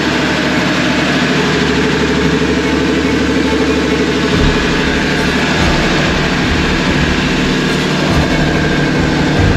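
Boat's inboard engine running steadily and loudly, a dense low rumble whose lowest part shifts about halfway through.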